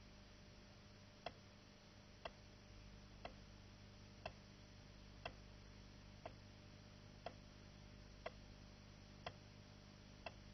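Clock-type timer ticking faintly, one sharp tick about every second, counting off the elapsed time, over a low steady hum from an old film soundtrack.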